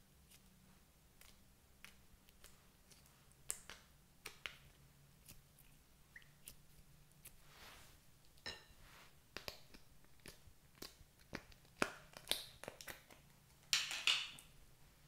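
Scattered light clicks and taps of plastic and glass items being handled and set down on a table, growing busier in the second half, with a few louder knocks and a short clatter near the end.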